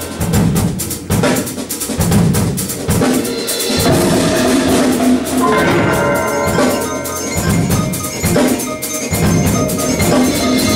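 Percussion ensemble playing: fast drum strokes and repeated low drum hits under ringing pitched notes from mallet instruments such as marimba.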